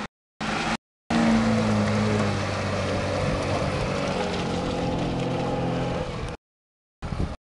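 Lada 2107 saloon's engine running as the car is driven around slalom cones, a higher note at first easing down to a steady tone. The sound cuts out to complete silence several times in the first second and again near the end.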